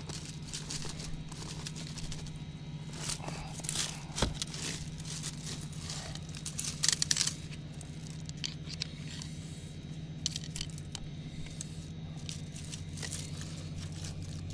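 Leafy weeds and woody stems being pulled and handled: irregular rustling, crackling and tearing, with a sharp snap or knock about four seconds in and the busiest crackling around seven seconds. A steady low hum runs underneath.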